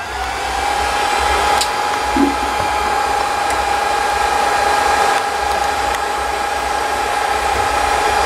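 Hot-air blower of a ZC-C2 BGA rework station switched on: it spins up over about the first second, then runs steadily as a rush of air with a steady hum.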